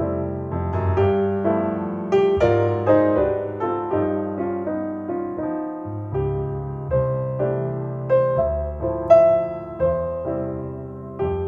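Solo piano music played back through Paradigm Persona 7F loudspeakers driven by an Accuphase E-800 Class A integrated amplifier: a melody of struck notes that fade, over low chords.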